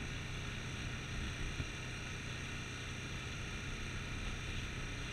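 Small motorboat's engine running steadily, with a steady hiss of water along the hull.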